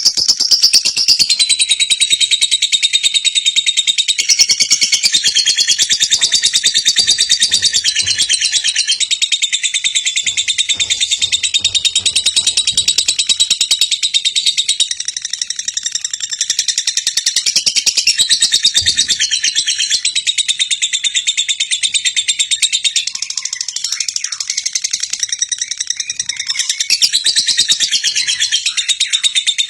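Lovebird singing a long, unbroken ngekek: a loud, rapid, high chattering trill of quickly repeated notes, kept up without a pause.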